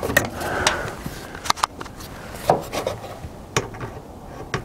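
Scattered light clicks, taps and brief scrapes of hand work with a cordless drill and a small solar panel's mounting bracket against a metal coop's roof edge. The drill is not running.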